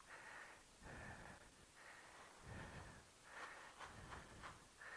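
Near silence with faint breathing close to the microphone, a few soft puffs about a second apart.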